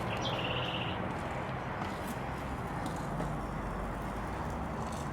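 Steady outdoor background noise, an even hiss, with a short, high, evenly pulsed trill in the first second.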